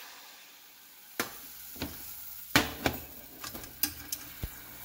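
Water just poured into melted sugar in a hot pan hisses and dies away over the first second. Then a utensil clicks and knocks against the pan about eight times while the sauce is stirred.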